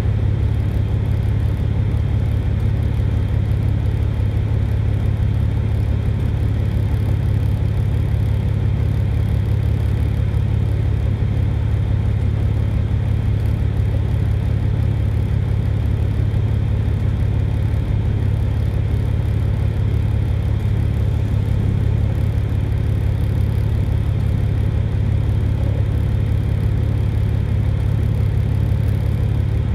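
Semi truck's diesel engine idling steadily, a constant low hum heard from inside the cab.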